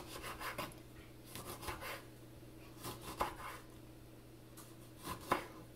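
Chef's knife slicing softened, boiled lemon halves into small pieces on a wooden cutting board, heard as four short runs of quick, faint cutting strokes against the board.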